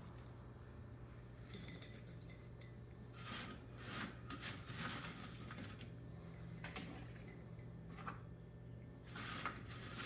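Coon-striped shrimp being loaded by hand into a jar of cure: faint, scattered knocks, clinks and rustles against the jar, with a steady low hum underneath.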